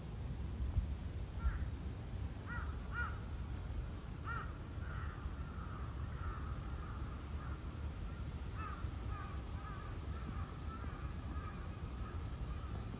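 Crows cawing: a few separate caws at first, then a longer run of calls from about five seconds in, over a steady low rumble.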